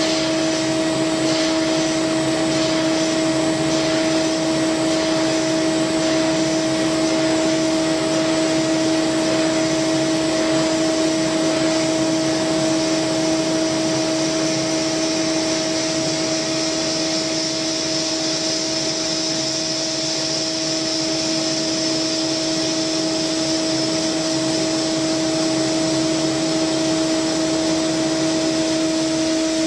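CNC milling machine spindle driving a coated end mill through an aluminium part: a steady pitched whine, one tone with another an octave above it, over an even hiss of cutting and coolant mist.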